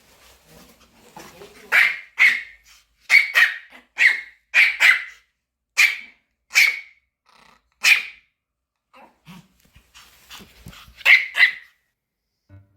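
A Pomeranian yaps about a dozen times in quick, high-pitched bursts, with a pause and then two more near the end: excited barking while greeting its owner.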